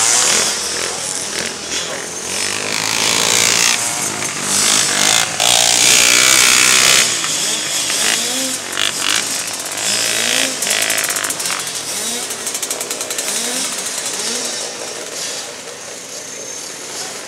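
Three-wheeler ATC racing engines running on a dirt track, revving up in pitch and dropping back several times, growing fainter toward the end.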